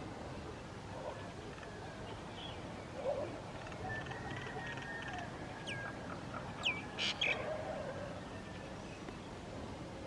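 Myna bird calling: a scatter of short chattering and rasping notes, with two sharp falling whistles and a harsh burst about two-thirds of the way through.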